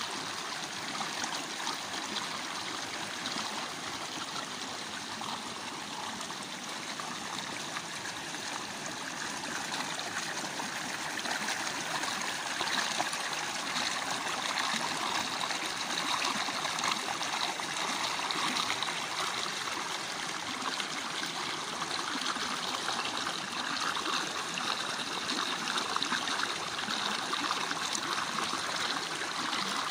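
Small waterfall and stream, water running and splashing over rocks in a steady rush, a little louder from about twelve seconds in.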